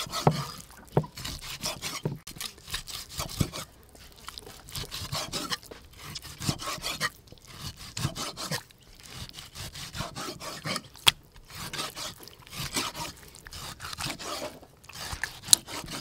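Chinese cleaver cutting raw pork on a thick wooden chopping block: a steady run of rubbing, sawing strokes as the blade is drawn through the meat, with a few sharper knocks of the blade on the wood.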